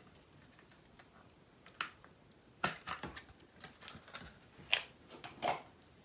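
Small plastic clicks and taps as the cap of a small green paint bottle is twisted and handled: a cluster of clicks a little before the middle, then two louder single clicks near the end.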